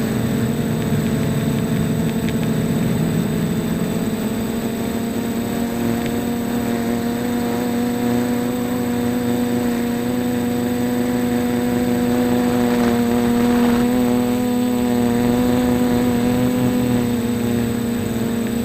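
Quadcopter's electric motors and propellers whirring in flight: a steady multi-tone hum whose pitch wavers slightly with throttle.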